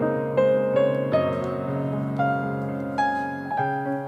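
Background piano music: a gentle melody of single notes, struck about twice a second.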